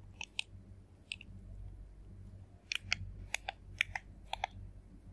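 Faint clicks of remote-control buttons being pressed and released, often in quick pairs, a dozen or so spread unevenly, as a password is keyed in on an on-screen keyboard. A low steady hum lies under them.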